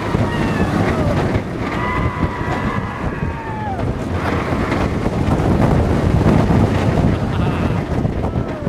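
Riding on board the Expedition GeForce roller coaster: wind blasting the microphone over the rumble of the moving train, with riders' long screams that trail off downward.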